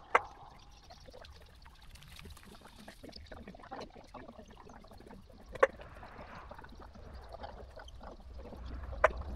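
Faint sounds of a mini excavator digging soil: a low engine hum that grows a little louder near the end, with many soft scattered clicks and three sharp knocks, one just after the start, one a little past halfway and one near the end.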